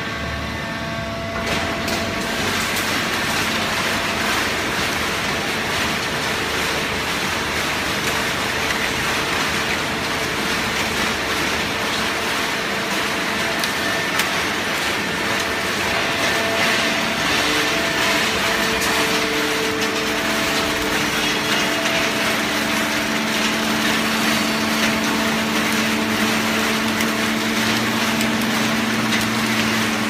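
Horizontal hydraulic waste-paper baler running: a steady mechanical hum with a few held tones under broad machine noise. It grows louder about a second and a half in.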